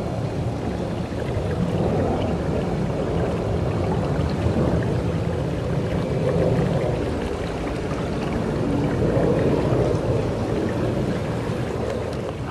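Water rushing and gurgling along a kayak's hull as it moves along the creek: a steady noise that swells and eases every few seconds.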